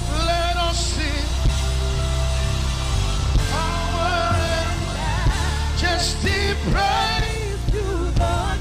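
Live worship band music: a sustained low bass bed with a wavering, pitch-bending melodic lead line over it, in short phrases.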